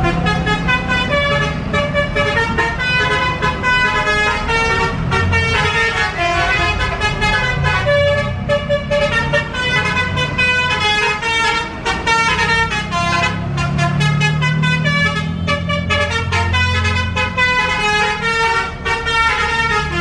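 Tour bus 'telolet basuri' musical horn playing a quick melody of short, changing notes without a break, over the low running of heavy bus engines. The engine sound grows stronger about three quarters in.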